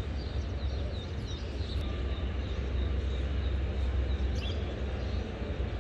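Open-air ambience with a steady low rumble and hiss. Small birds chirp a few times in the first two seconds and once more about four seconds in.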